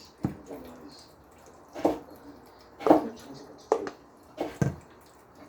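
A spoon scooping mashed potatoes into a container: about six short, wet plops and knocks at irregular intervals.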